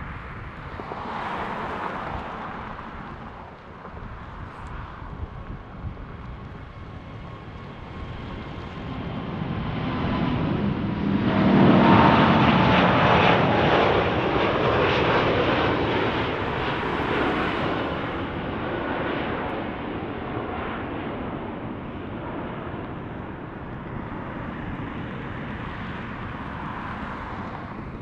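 Qantas Airbus A380's four Rolls-Royce Trent 900 turbofans at takeoff thrust as the jet lifts off and passes. The roar builds to its loudest about twelve seconds in, with an engine whine that falls in pitch as it goes by, then fades slowly as the aircraft climbs away.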